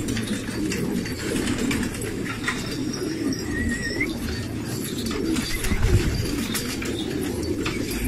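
Many domestic pigeons cooing together, a continuous low murmur of overlapping coos, with a few faint clicks and a brief high warbling note near the middle.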